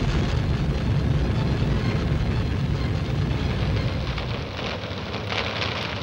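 Loud, steady rumbling roar with a crackling hiss over it, easing off a little in the last two seconds.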